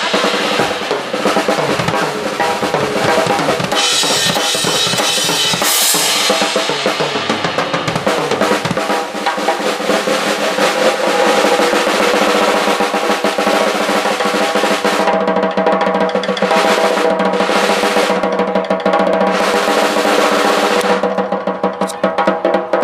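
Drum kit solo: rapid snare and tom rolls over bass drum, with cymbal crashes that come and go. Near the end the strokes space out into separate hits.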